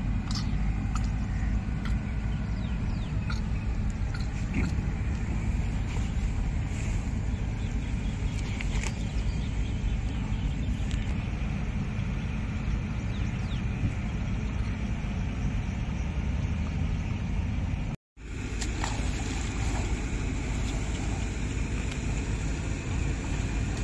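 Steady low rumble with a few faint ticks above it; it drops out for an instant about eighteen seconds in, then carries on unchanged.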